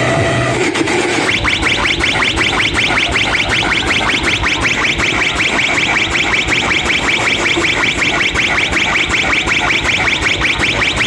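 Electronic chirp effect played loud through a DJ sound system: short sweeping tones repeating rapidly and evenly, starting about a second in.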